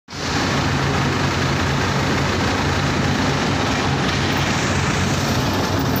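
Small wheel loader's diesel engine running steadily, a constant low hum under a broad, even wash of machinery noise.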